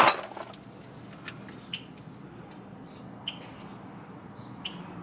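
Quiet outdoor background with a few faint, short bird chirps, about four spread over five seconds.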